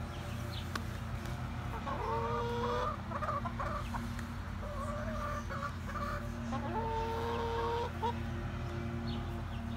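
Backyard chickens clucking and calling, with two long, steady-pitched drawn-out calls of just under a second each, about two seconds in and again about seven seconds in. A steady low hum runs underneath.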